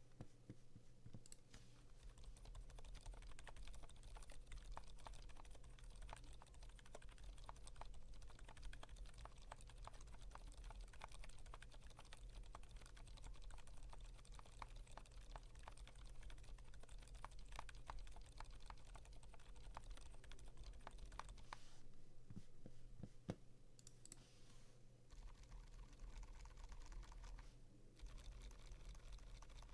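Typing on a GMMK Pro 75% mechanical keyboard with lubed Gazzew Boba U4 silent tactile switches and PBT keycaps: a quiet, continuous stream of muted keystrokes, broken by a few short pauses near the end.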